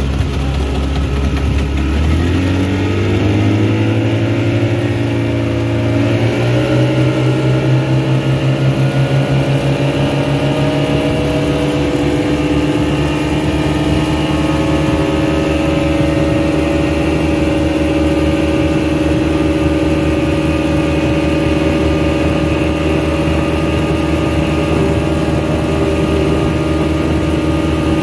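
Speedboat engine speeding up, its pitch rising over about ten seconds, then running steadily at cruising speed.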